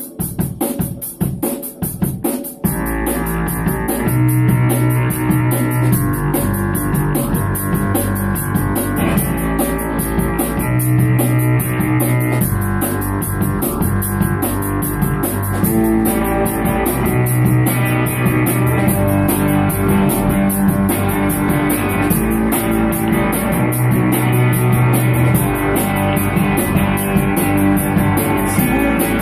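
Live band playing: a few separate drum hits, then about three seconds in the full band comes in, with electric guitar and drum kit over low notes repeating in a riff.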